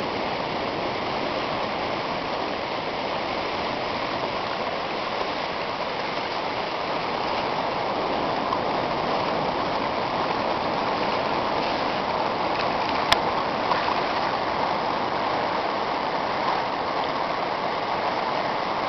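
Shallow river water flowing and rippling over a sand shoal: a steady, even rushing noise. A single sharp click comes about thirteen seconds in.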